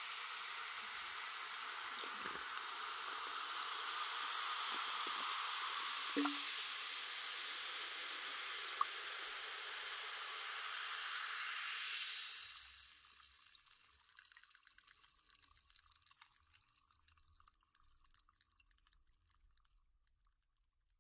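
Freshly poured carbonated soda fizzing, a steady hiss of bursting bubbles with a few small pops. About twelve seconds in the fizz drops away to a faint, scattered crackle of bubbles that dies out.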